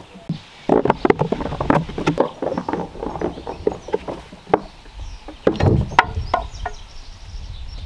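A freshly chainsaw-milled wooden slab being pushed and slid along the top of the log: irregular wooden scraping, knocks and bumps, with a second burst of knocks a little past the middle.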